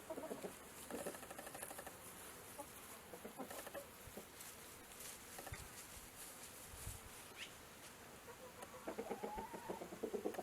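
Faint bird calls coming in short pulsing runs: at the start, about a second in, and again near the end.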